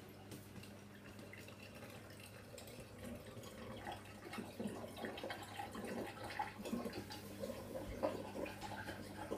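Hoover Dynamic 8 Pulse washing machine with water splashing and trickling in the drum. The sound starts suddenly and grows louder over several seconds, over a steady low hum.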